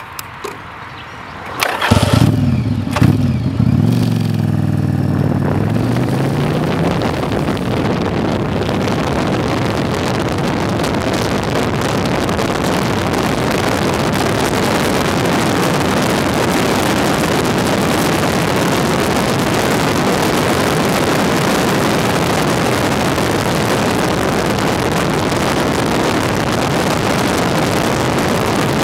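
Yamaha Virago V-twin motorcycle engine opening up about two seconds in and accelerating hard, its pitch rising and dropping through gear changes for several seconds. Then a steady rush of wind and engine noise while riding at speed.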